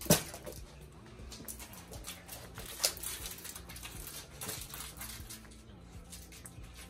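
A dachshund moving about on a hallway rug and wood floor and nosing at plush toys: light pattering with scattered sharp clicks, over a faint steady low hum.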